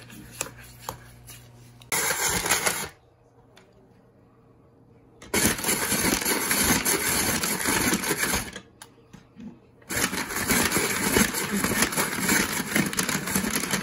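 Hand-cranked ice shaver grinding ice cubes into shaved ice, in three bouts of turning: a short one about two seconds in, then longer ones from about five and ten seconds in, with pauses between.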